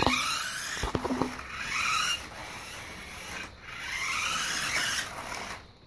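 Toy RC car's electric motor whining as it speeds up, twice, each a rising whine, with a couple of knocks near the start.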